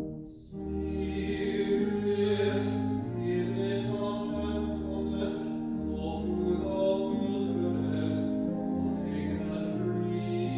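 Slow church music: a singing voice over sustained keyboard chords, starting again after a brief dip in level just after the start.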